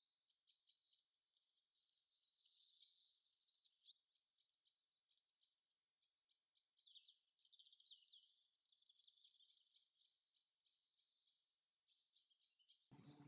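Faint forest nature sounds, high and thin: birdsong over a steady chirping pulse about twice a second, like a cricket or other insect.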